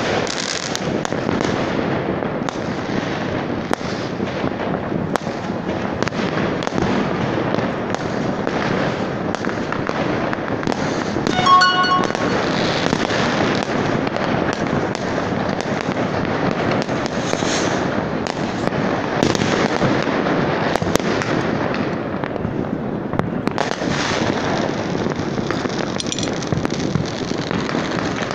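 Many fireworks and firecrackers going off at once: a dense, continuous crackle of pops and bangs without a break. A brief pitched tone sounds about halfway through.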